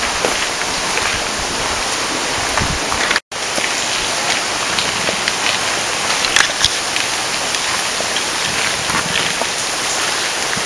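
Steady rushing noise like running water, with a few faint ticks; the sound cuts out for an instant about three seconds in.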